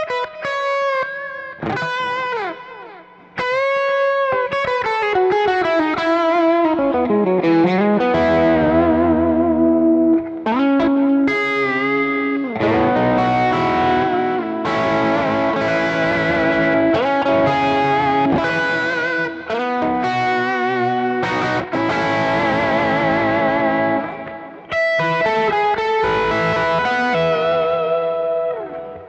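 Electric guitar played through a Kemper Profiler profile of a small Fender Princeton amp, with the Green Scream overdrive stacked on a soft shaper for a lightly driven tone. Bent notes, vibrato on held notes and a slide down about seven seconds in, with short breaks in the playing near the start and near the end.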